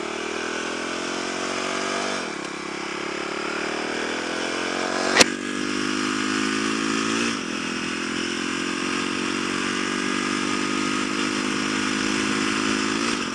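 Kawasaki supermoto's engine accelerating through the gears: the revs climb and drop back three times as it is upshifted, with a sharp click about five seconds in. The throttle is worked through a makeshift thumb-pulled cable after the throttle cable snapped.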